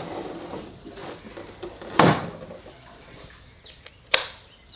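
A loud thud about two seconds in, then a sharp click about four seconds in as an old round toggle switch on a wooden wall switchboard is flipped on.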